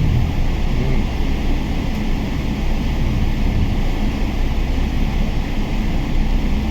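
Steady, loud rumbling rush inside the cabin of a Boeing 777-300 airliner: jet engine and airflow noise, heaviest in the low end.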